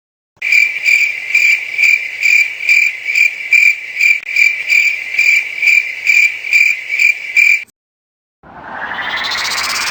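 Cricket chirping sound effect, the stock 'crickets' meme for an awkward silence: a steady run of high, evenly spaced chirps, about two to three a second, that cuts off suddenly. After a short gap, a rising sweep effect begins near the end.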